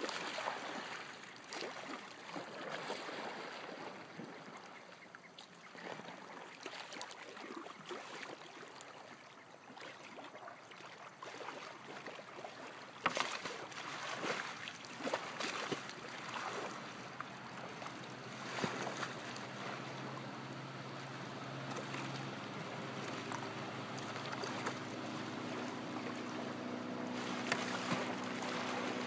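Water splashing and sloshing around a small kayak as the paddler tips over and rolls back up, with the paddle blades slapping and pulling through the water. A sharp knock about halfway through, and a steady low hum from about two-thirds of the way in.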